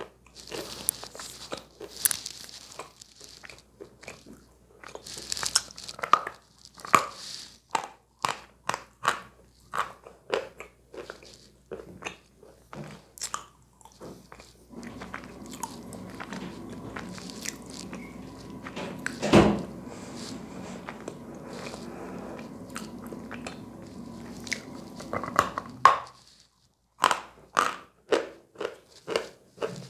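Dry chalk bitten and chewed close to the microphone: a fast run of sharp crunches as pieces break between the teeth. For about ten seconds in the middle, a steady hum runs under quieter chewing, with one loud crunch. After a brief pause, crisp bites start again near the end.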